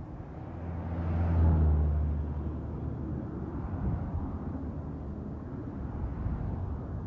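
A motor vehicle passing by, its low engine hum swelling to a peak about a second and a half in and then fading into steady outdoor noise.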